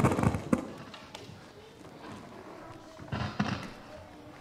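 A few sharp knocks and thumps, grouped at the start and again about three seconds in, over the chatter of a hall full of children.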